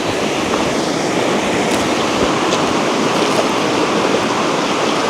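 Fast-running river rushing steadily close by.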